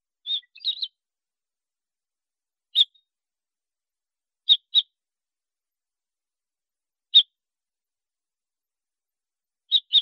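Red-fronted rosefinch calling: short, high chirps, a quick run of three or four in the first second, then single notes and pairs a couple of seconds apart.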